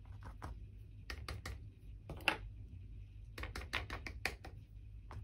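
Irregular light taps and clicks in small clusters, from a paintbrush being dabbed over painted board and handled on the work surface.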